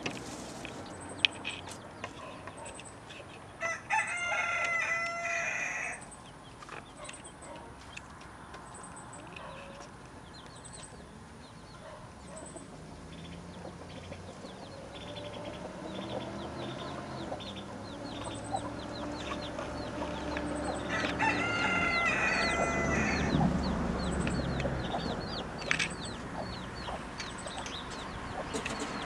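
A rooster crows twice, once a few seconds in and again past the middle, each crow about two seconds long, over the repeated high peeping of baby chicks.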